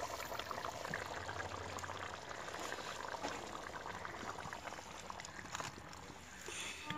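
Pot of biryani boiling on the stove: a steady bubbling with many small pops.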